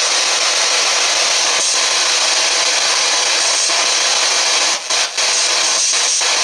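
Spirit box, a handheld radio scanner sweeping through stations, giving a steady loud hiss of static that drops out briefly twice about five seconds in.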